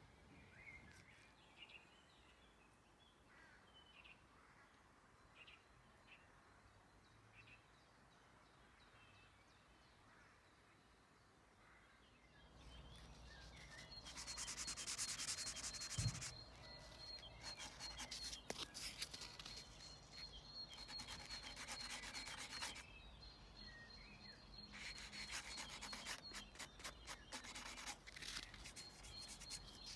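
Faint chirps over near silence, then from about twelve seconds in, sanding on paintwork in four bursts of a few seconds each, with a thin steady high whine beneath.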